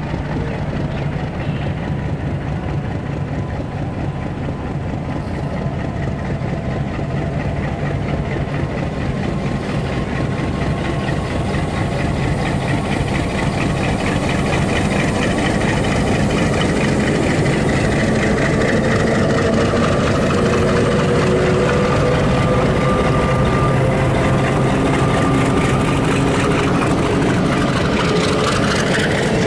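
Pakistan Railways GRU-20 diesel-electric locomotive running as it approaches slowly and passes close by, its engine growing louder through the first half. The passenger coaches behind it then roll past on the rails, with a few faint whining tones in the second half.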